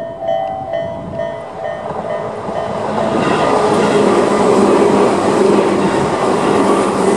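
Tobu 10000 series electric train running through a level crossing; its wheel and running noise builds about two to three seconds in and becomes loud. At the start the crossing's electronic warning bell (Tobu type-A sound) rings at a quick, steady beat, and the train noise then covers it.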